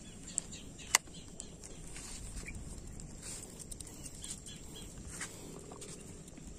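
Quiet open-air riverbank ambience with faint scattered bird calls and a steady faint high whine, broken by a single sharp click about a second in.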